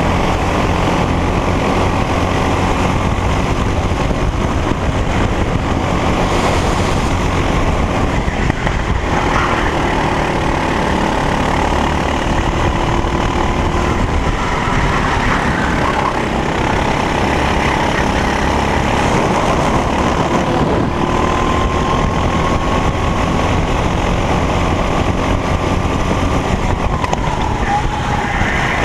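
Racing kart engine running hard on track, its pitch slowly rising and falling with speed, over a dense low rumble.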